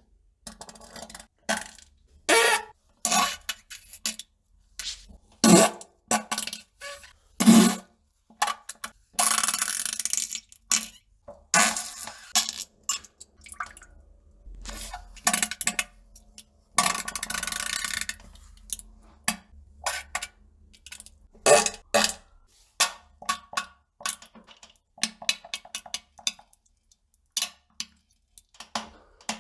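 A rapid series of fart sounds, mostly short blasts with brief gaps between them, and a few longer drawn-out ones lasting a second or two in the middle.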